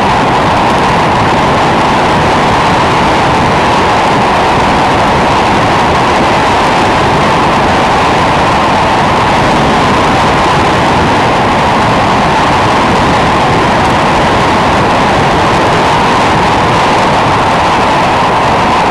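Loud, steady wind rush over the microphone of a road bike descending fast, with the strongest part a steady mid-pitched hiss.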